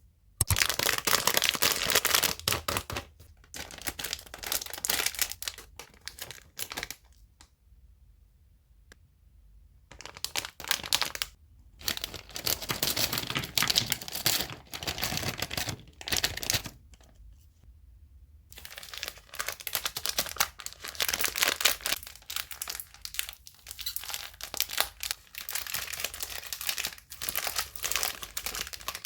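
Plastic sweet wrappers and packets crinkling and being torn open, in crackly bursts with a couple of short pauses.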